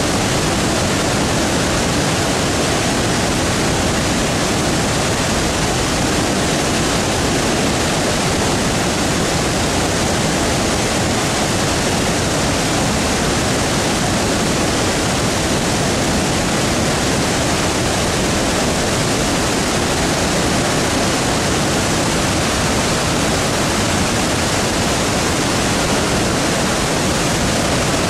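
Victoria Falls, the Zambezi River pouring over the falls in heavy flow: a loud, steady rush of falling water that does not change.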